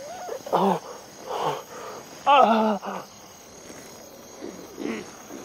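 A man groaning and gasping in pain in several short moans, the longest about two seconds in, over steady night-time cricket chirping.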